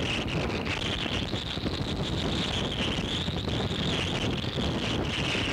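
Hurricane-force wind buffeting the camera microphone, with wind-driven rain: a steady rushing noise with a low rumble.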